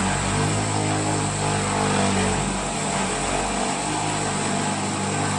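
Corded electric drill running steadily under load, its bit grinding into a granite countertop with a steady motor hum and a harsh abrasive hiss, while water is poured on to cool the cut.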